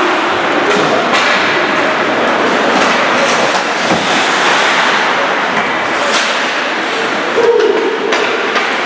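Steady crowd noise from spectators at a sports match, with scattered voices and a few sharp knocks.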